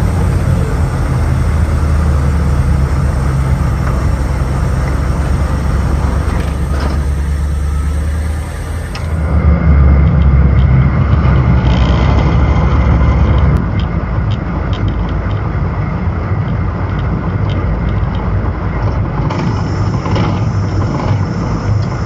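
AM General M998 Humvee's diesel V8 running as the truck drives, a steady low drone with road noise; the engine grows louder for a few seconds about halfway through.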